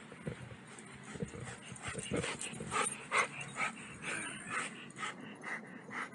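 Chesapeake Bay retriever panting in quick, uneven breaths, louder from about two seconds in.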